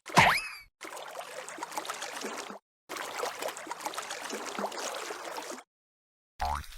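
A short cartoon boing sound effect sweeping in pitch, then two stretches of steady watery bubbling and splashing noise with light ticks, and a brief rising sound effect with a low thud near the end.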